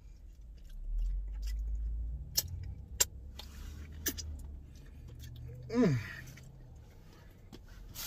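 A low rumble, like a vehicle going by, swells about a second in and settles into a steady low hum. Over it come a few sharp clicks, and near the end a short falling vocal sound.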